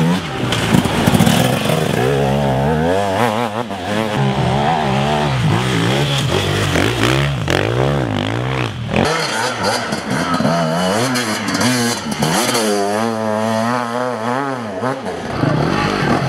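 Enduro motorcycle engines revving hard, their pitch rising and falling over and over with each throttle blip and gear change.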